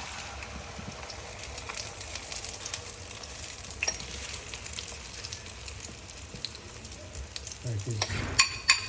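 Omelette egg mixture with onions and chili sizzling steadily as it fries in a hot pan. Near the end a utensil clinks sharply against the pan a couple of times.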